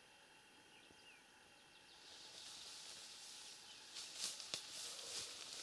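Quiet field ambience with a few faint bird chirps; from about two seconds in a soft rustling hiss rises, with a few sharp ticks near the end.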